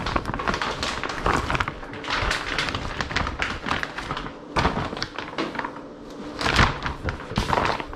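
A clear plastic bag crinkling and rustling as a fishing rod is worked out of it, with a few knocks from handling the rod.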